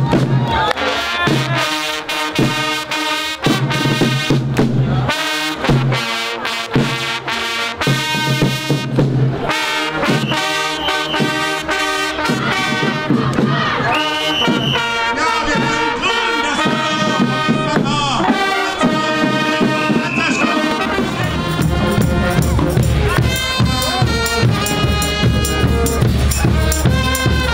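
Brass-and-drum band music, horns playing chords over a marching drum rhythm. About 21 seconds in it changes to music with a heavy, steady bass beat.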